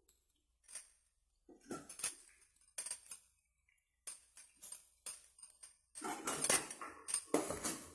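Steel spoon clinking and scraping against the inside of a pressure cooker while chicken is stirred. Scattered light taps at first, then denser, louder scraping from about six seconds in.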